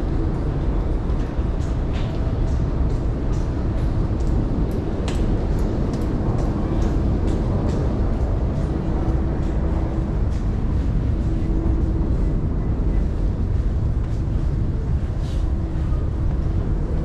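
Busy train-station concourse ambience: a steady low rumble with frequent sharp clicks and taps of footsteps on a hard floor.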